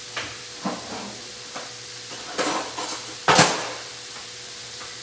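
Kitchenware knocking and clattering: a few light knocks, a louder clatter about two and a half seconds in, and a loud clank a little after three seconds. Underneath is a steady low sizzle from vegetables frying in the skillet.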